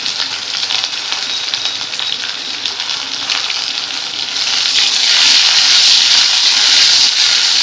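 Onion, curry leaves and dried red chilli sizzling in hot oil in an iron kadai. The sizzle swells louder about halfway through as the pieces are stirred with a spatula.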